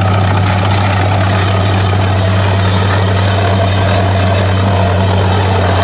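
Borewell drilling rig's heavy engine running steadily: a loud, unbroken, deep drone.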